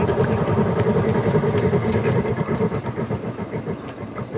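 Battery-powered ride-on miniature steam-outline locomotive running along the track: a steady rumble and rattle of its wheels and drive on the rails, getting quieter about halfway through, with a few light clicks.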